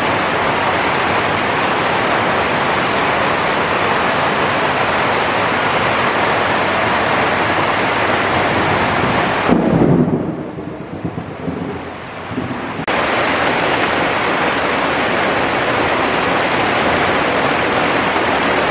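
Heavy rain pouring steadily, a loud even hiss. About ten seconds in comes a brief low rumble, then the rain sound drops quieter for about three seconds before the full hiss comes back suddenly.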